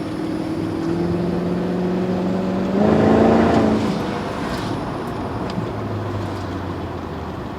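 BMW V8 with a hole in its exhaust, driving: the engine note climbs slowly, swells into a louder burst of acceleration about three seconds in, then eases back to a steady cruise.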